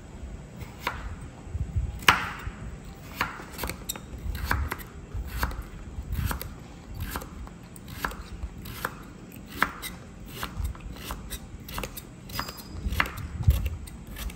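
Kitchen knife slicing a peeled carrot into rounds on an end-grain wooden cutting board, each cut ending in a sharp knock of the blade on the board, about two cuts a second and unevenly spaced.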